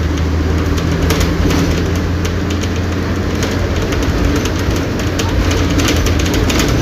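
Mercedes-Benz OF-1722M bus's 218 hp four-cylinder turbodiesel engine running steadily under way, with frequent rattling clicks from the bus body.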